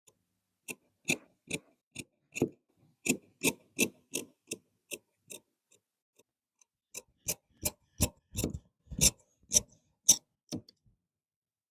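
Tailor's shears cutting cloth: a run of crisp snips, two or three a second, that pauses for a second or so about halfway and then starts again.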